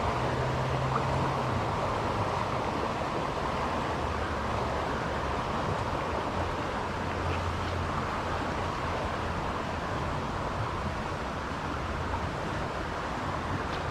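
Steady rushing of a small creek's running water.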